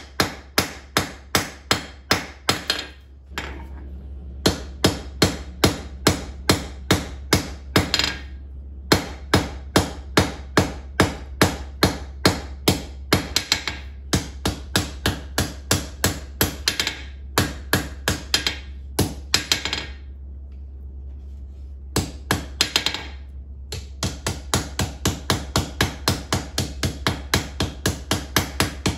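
Hand hammer striking a red-hot steel tong blank on an anvil, in runs of about three blows a second with short pauses between runs, as the reins are shaped. A steady low hum runs underneath.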